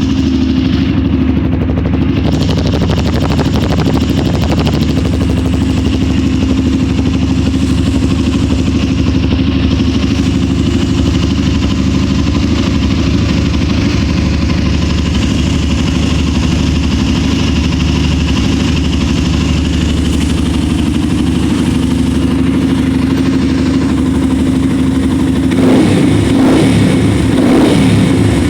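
Yamaha FZ16 2.0's single-cylinder engine running through an aftermarket Arrow exhaust, idling steadily. A few quick throttle blips come near the end.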